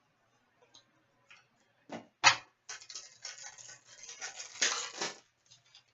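Two sharp knocks, then a trading-card pack's wrapper being torn open and crinkled for about two and a half seconds.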